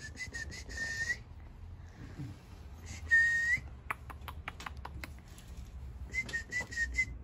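A person whistling short, steady high notes in three bursts: a few quick notes at the start, one longer and louder note about three seconds in, and another run of short notes near the end. Between them come a handful of sharp clicks.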